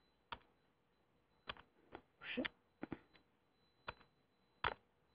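About nine sharp, irregularly spaced clicks and taps of a stylus working a writing tablet, with a short scratchy scribble about two seconds in.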